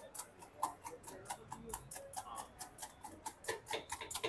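Eggs being beaten with a whisk in a small steel pan, the whisk clicking against the metal in quick, regular strokes, about five a second.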